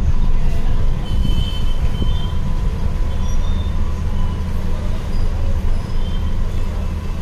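Steady low rumble of traffic noise, with a few brief faint high-pitched tones over it.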